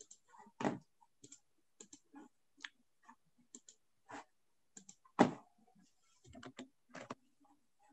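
Irregular clicks and taps of a computer keyboard and mouse, with two louder knocks about half a second and five seconds in.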